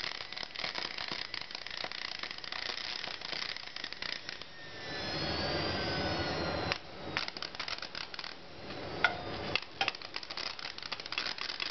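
Small brushed universal motor from a paper shredder, crackling and rattling as its brushes spark against the commutator. It then whirs with a sliding whine for about two seconds and cuts off abruptly. After that come scattered clicks and knocks as the motor is handled. The brush springs have given out, so the brushes no longer press properly on the armature and the motor is burning out.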